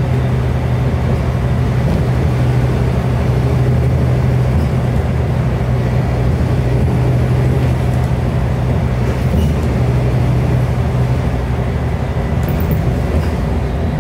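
Scania DC09 9-litre five-cylinder diesel of a double-decker bus droning steadily under way, heard from inside the passenger saloon along with road and tyre rumble. The bus is cruising with a steady engine note.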